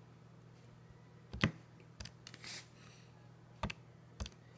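Keys of a TI-83 Plus graphing calculator being pressed: about five short, sharp clicks at uneven spacing over a faint steady low hum.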